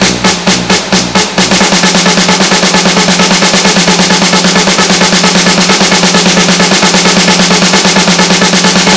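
Music with a drum beat that breaks into a fast, even snare drum roll about a second and a half in, over a steady low bass note.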